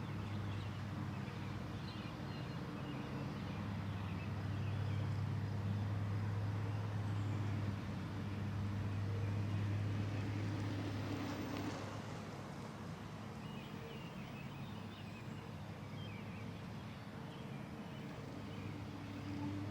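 A steady low vehicle hum with a few faint birds chirping over it; the hum shifts slightly about twelve seconds in.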